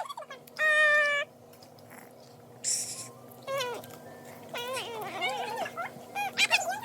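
A young child's high-pitched whining cry about half a second in, a short hiss of breath a couple of seconds later, then softer wavering whimpers: a reaction to very spicy buldak noodles.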